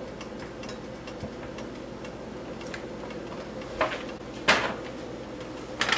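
Cooking oil being poured into a nonstick wok, heard as light ticks and a few sharp clicks in the second half from the bottle and pan being handled, over a steady hum.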